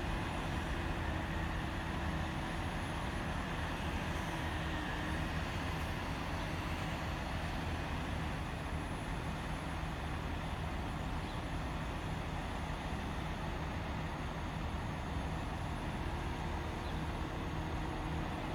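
Mobile crane's engine running steadily, a constant low rumble with a steady hum.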